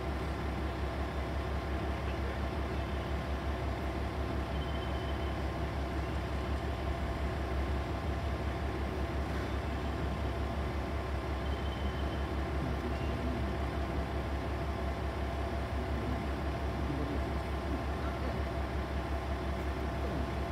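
Diesel engine of a KiHa 40 railcar idling steadily, a low even throb.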